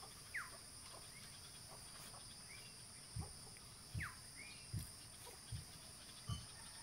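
Rural outdoor ambience: insects buzzing steadily, and a bird giving a short falling whistled call twice. Soft low thumps come once near the start and then about every three-quarters of a second from about three seconds in.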